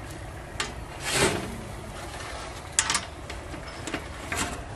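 Metal tongs clicking and a large steel cover plate being handled over a griddle. There is a scrape about a second in, a couple of sharp metallic clicks near the middle and a lighter click near the end, over a steady low rumble.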